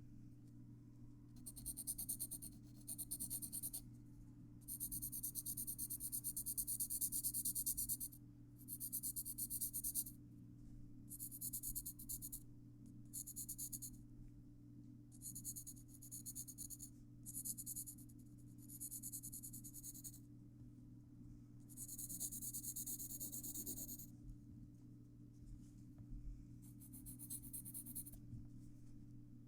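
Graphite pencil scratching across paper while drawing and shading, in strokes from under a second to about three seconds long, separated by short pauses.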